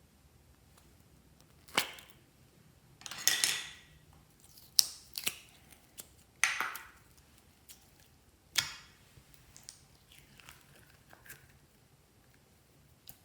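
Slime being worked by hand, giving sharp clicking pops and short crackles as trapped air bubbles burst. There are about half a dozen loud pops between roughly 2 and 9 seconds in, then fainter ones near the end.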